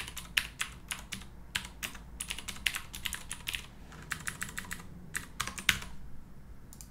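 Typing on a computer keyboard: quick runs of keystrokes with short pauses between them, stopping about six seconds in apart from a couple of final taps.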